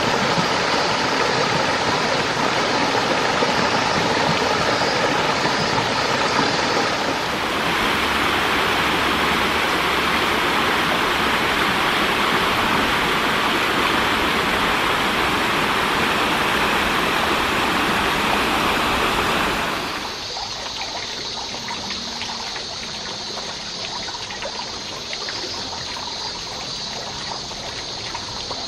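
Running water: a shallow stream flowing over bare rock. From about seven seconds in, a small waterfall pours down a rock face, louder and hissier. At about twenty seconds it drops to a softer splashing of water spouting from a pipe into a stream.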